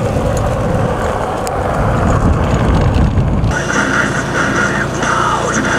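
Wind buffeting the microphone, with the rumble of a kick scooter's wheels rolling on asphalt, for about three and a half seconds. It then cuts off abruptly to a steadier, quieter sound with a higher-pitched pulse repeating about twice a second.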